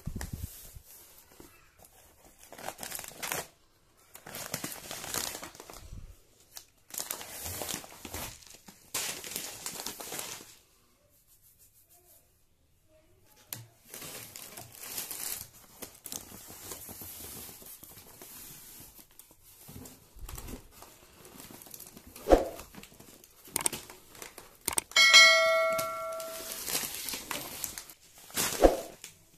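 Cardboard box flaps and plastic-wrapped rice bags rustling, crinkling and scraping in repeated bursts as the box is unpacked, with a pause a little before the middle and a sharp knock later on. Near the end a short ringing chime sounds.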